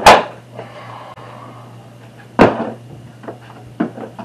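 Hard plastic knocks of Milwaukee PACKOUT toolboxes being handled and stacked on the dolly: a sharp knock at the start, another about two and a half seconds in, then a few lighter clicks near the end.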